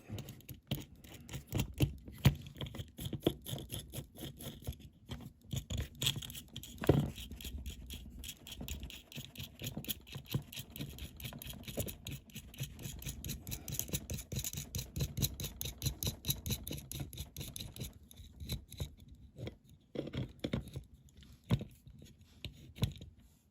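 Rapid, continuous scraping and clicking of small metal parts being handled close up: a long thin threaded bolt being worked through the drilled holes of a diecast car casting.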